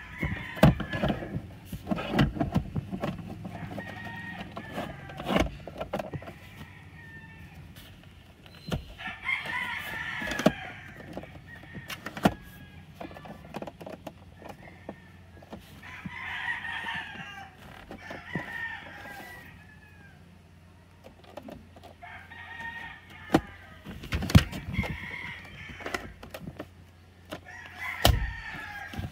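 Sharp clicks and knocks of a car's plastic centre armrest being handled and pressed into place between the front seats. Several drawn-out animal calls sound in the background between them.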